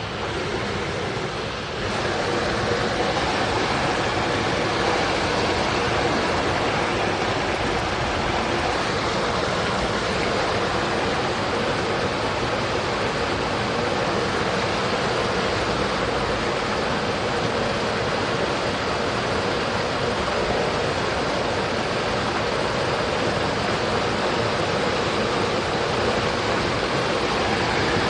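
Mountain stream rushing steadily over rocks, a little louder from about two seconds in.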